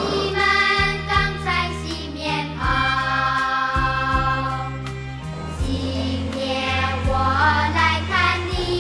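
Music: a sung song over a backing of sustained bass notes.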